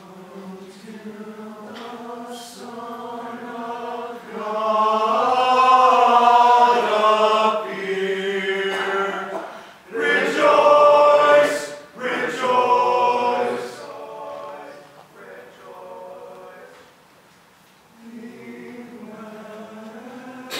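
A choir singing in held notes with little or no accompaniment. It swells loudest twice, in the middle of the stretch, with short breaks between phrases, then grows quieter and pauses briefly near the end before the voices come back in.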